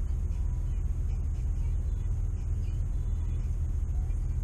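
Steady low rumble heard from inside a parked car's cabin, even and unbroken.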